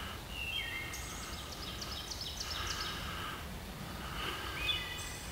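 Wood thrush singing in woodland: two short, clear, flute-like phrases, one near the start and one about four seconds in. Between them comes a quicker run of repeated high notes from another bird that grows louder, over a steady background hiss.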